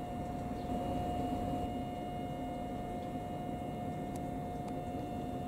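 Steady electrical hum with a constant whine from a parked Tobu 800-series electric train's auxiliary equipment, running at standstill over low background noise.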